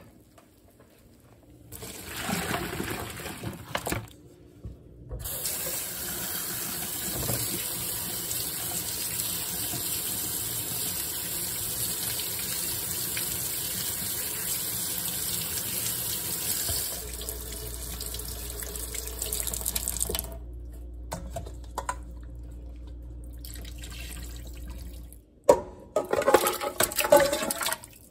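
Kitchen faucet running into a sink as parboiled beef short ribs are rinsed and rubbed clean by hand under the stream. A few sharp clatters near the end.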